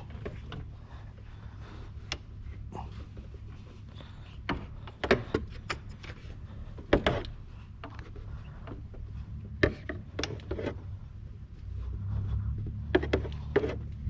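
Scattered clicks and knocks from hands and tools working a drive belt onto the engine's pulleys, over a steady low hum that grows louder near the end.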